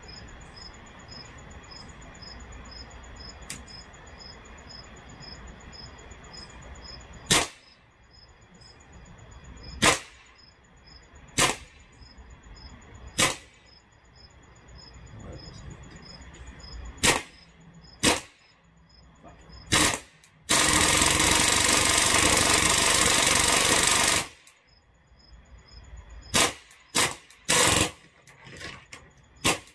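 Full-auto Tippmann air rifle firing .22 pellets on high-pressure CO2. Single sharp shots every second or two, then one unbroken full-auto burst of about four seconds, then a few more quick shots near the end.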